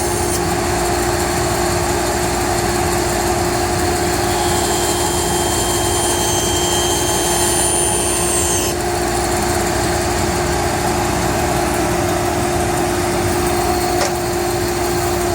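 Band saw running with a steady hum. A higher whine joins about four seconds in and stops abruptly about nine seconds in, with a brief click near the end.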